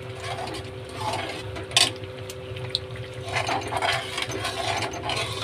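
Metal spatula stirring and scraping thick masala gravy around a steel kadai, with a sharp clink of metal on the pan about two seconds in. A steady low hum runs underneath.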